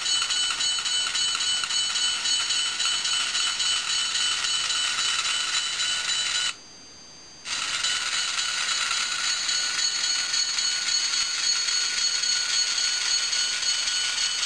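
H0-scale model switcher locomotive running slowly, its motor and gearing giving a steady high-pitched whine. The whine cuts out for about a second midway, then resumes.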